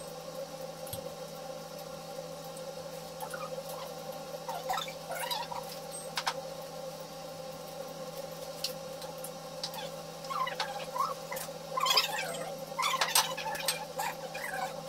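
Sounds of a meal at a table: scattered clicks and taps of utensils and dishes over a steady hum. From about ten seconds in, clusters of short squeaky chirping sounds come through, louder than the rest.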